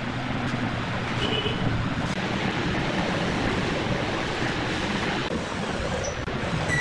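Steady rushing background noise, with a few faint, brief high squeaks about a second in and near the end.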